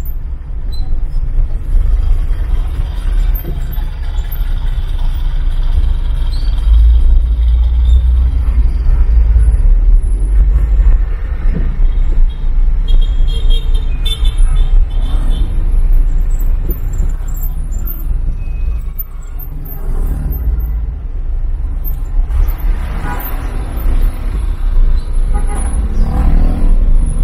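Car creeping through congested street traffic, heard from inside the cabin: a steady low rumble of engine and road noise. About halfway through comes a short run of high beeps.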